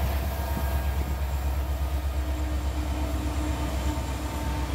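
Diesel freight locomotives passing close by: a CN EMD SD70M-2 leading and a GE C40-8W trailing, their engines running with a steady low rumble. A steady hum joins about two seconds in.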